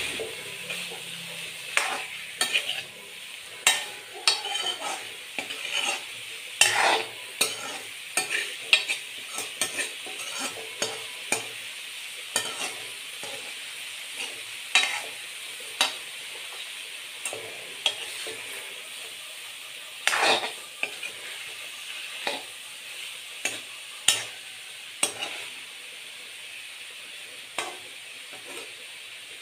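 Cauliflower and egg sizzling as they fry in a metal pan, with a spatula scraping and knocking against the pan at irregular intervals as the mixture is stirred. The spatula strokes thin out near the end, leaving mainly the steady sizzle.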